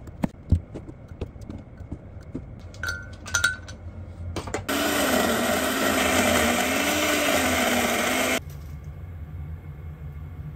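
A kitchen knife cuts tomatoes on a cutting board, making a few sharp knocks. About four and a half seconds in, a countertop blender starts puréeing the tomatoes into juice. It runs loudly for nearly four seconds, its motor pitch wavering slightly, then cuts off suddenly.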